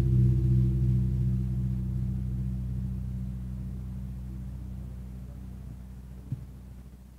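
Large hanging bossed temple gong ringing after a single mallet strike, a deep steady hum that slowly fades away. A faint knock comes about six seconds in.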